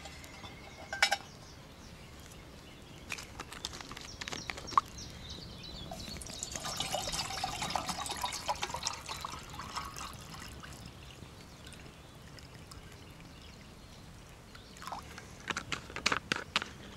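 Water poured from a plastic field canteen into a metal canteen cup, a few seconds of steady pouring in the middle. A few sharp clicks come before it, and a run of clicks and knocks comes near the end.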